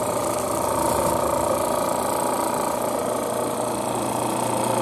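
Robinair RG3 refrigerant recovery machine running with a steady hum, pulling R134a out of a car's A/C system as the system pressure nears zero.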